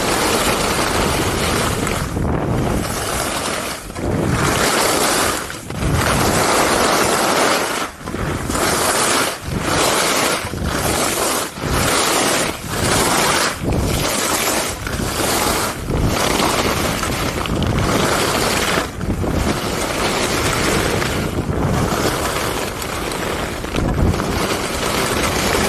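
Skis carving turns on a groomed piste: a steady rushing scrape of the edges on the snow that breaks off briefly at each change of turn. The breaks come quicker, several a second apart, from about nine to sixteen seconds in. Wind noise on the microphone runs through it.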